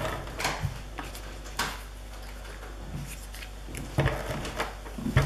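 Red adhesive tape runner and cardstock handled on a wooden tabletop: a few sharp knocks and taps as the dispenser is pressed onto the card and set down, with light scraping of paper between them.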